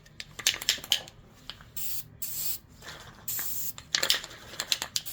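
Aerosol spray-paint can spraying in two short hisses, about two seconds in and again near three and a half seconds, with scattered light taps and clicks between them.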